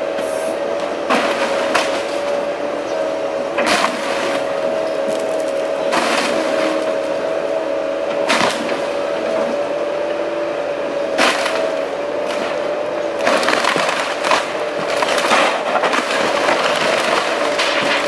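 Kobelco tracked excavator running with a steady whine while its bucket breaks into a house's shingled wooden roof: wood cracking and splintering in sharp crashes every few seconds, coming thicker near the end.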